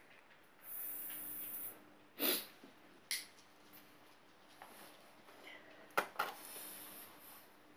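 Watercolour brush-pen tip rubbing across paper, a soft scratchy hiss of strokes about a second in and again near the end, with three or four short sharp ticks in between.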